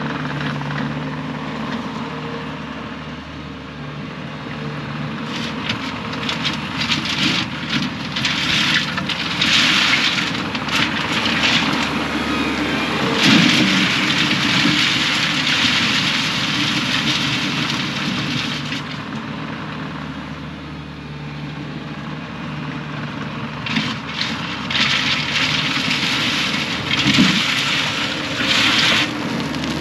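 Diesel engine of a piece of heavy digging equipment running steadily, with stretches of rushing, scraping noise coming and going over it.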